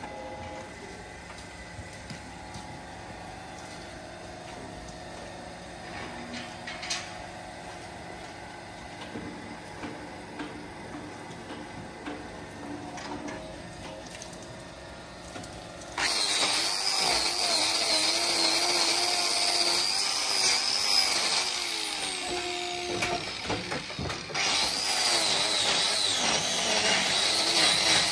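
Low, steady barn background, then about halfway through an angle grinder fitted with a hoof-trimming disc starts suddenly and runs loud with a high whine as it grinds down a cow's hoof. It eases for a couple of seconds near the end, then comes back up.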